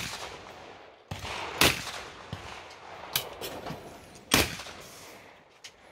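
Shotgun shots at clay targets: two loud shots about one and a half and four and a half seconds in, each with a trailing echo, and fainter shots between them.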